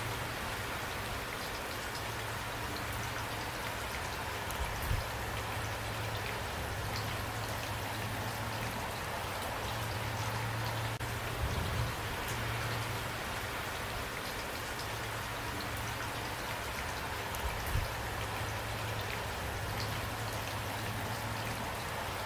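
Steady rain falling, an even hiss with scattered drop ticks and a steady low rumble underneath. A few brief low thumps stand out, about 5, 12 and 18 seconds in.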